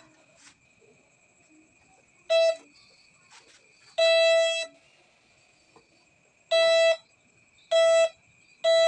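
Nokta Makro Jeotech metal detector giving its target signal over metal: five short, buzzy beeps, each under a second long, a couple of seconds apart at first and closer together near the end. A faint, steady high tone runs under them.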